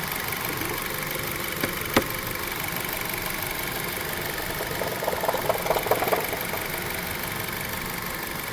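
Engine idling with an unidentified extraneous noise in it, a sharp click twice about two seconds in and a quick run of ticks about five to six seconds in; the owner cannot place it and wonders whether it is the timing chain.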